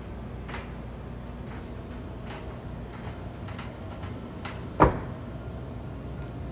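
Cab door of a Kia K2500 utility van swung shut, a single sharp bang a little under five seconds in, over a low steady background hum.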